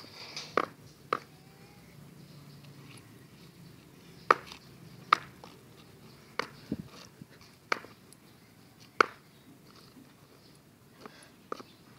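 Oversized women's high-heeled pumps clacking on concrete as a toddler clomps about in them: sharp single clicks at uneven gaps, about nine in all.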